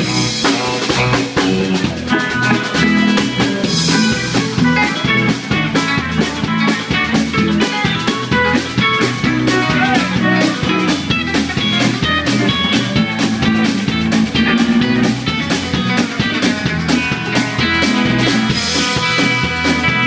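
Live band jamming an instrumental passage: electric guitars and bass guitar over a drum kit, played at an even level.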